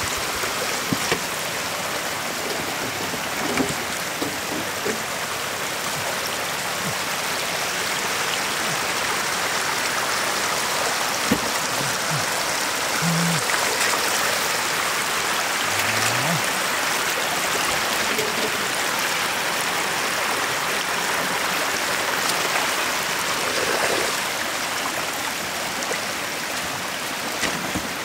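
Shallow floodwater running steadily over mud through a small channel, with a few brief knocks.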